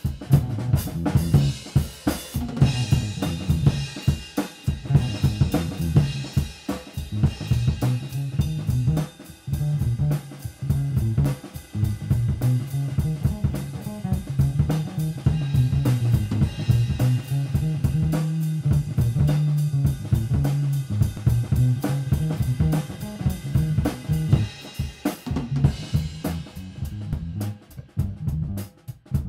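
Background music with a steady drum-kit beat of snare, bass drum and hi-hat.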